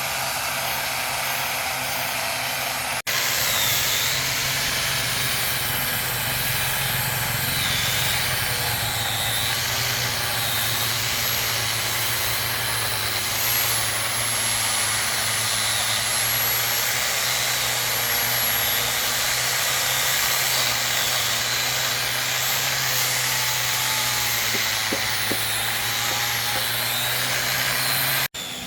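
A handheld power tool, a drill or sander working wood, running steadily with a constant motor hum and a high whine. Two brief dropouts, one about three seconds in and one near the end, interrupt it.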